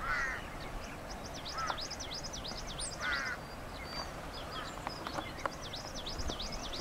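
Wild birds singing: a fast run of high, repeated chirping notes throughout, with a short harsh rasping call twice, at the start and about three seconds in.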